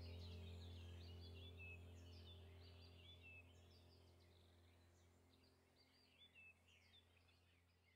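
Birds chirping over a low steady drone, the whole sound slowly fading out.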